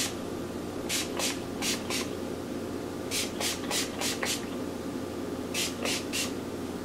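Fine-mist pump spray bottle spraying onto hair: about a dozen short hissing spritzes in quick groups of three to five.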